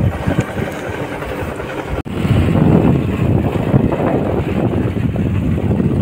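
Wind buffeting the microphone with motorcycle running and road noise while riding. The sound cuts out for an instant about two seconds in.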